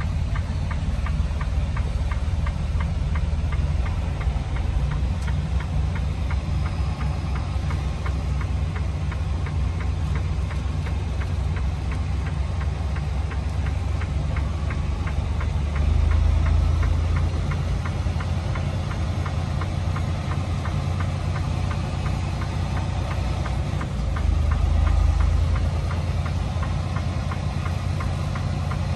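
Semi-truck diesel engine idling with a steady, ticking clatter. It swells briefly louder twice, about halfway through and again near the end.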